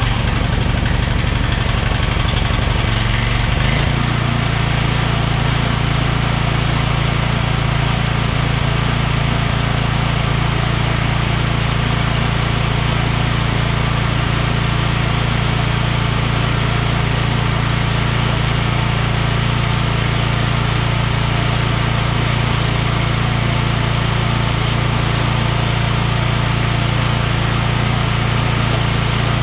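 Small gasoline engine of a rebuilt chipper-shredder running on a test run after reassembly. The engine note shifts and then settles into a steady run about four seconds in.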